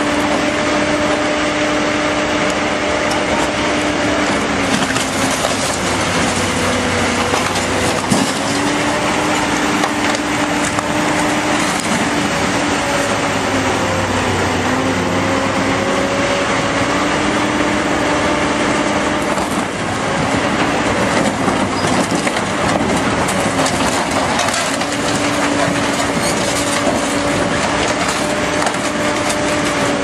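Hydraulic excavator running under load, its engine hum sagging in pitch now and then, while its scrap grab crunches and tears through a wrecked vehicle's metal body. A sharp knock stands out about eight seconds in.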